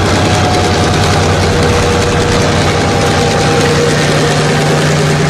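Diesel locomotive engine idling steadily, a constant low hum with a faint steady whine above it.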